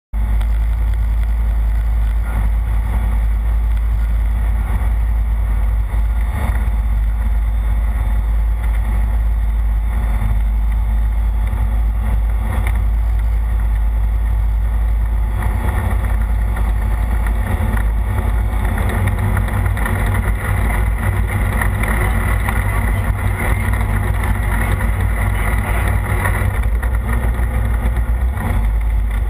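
Single-engine light airplane's engine and propeller running steadily at low taxi power, heard from inside the cockpit as a loud, even, deep drone.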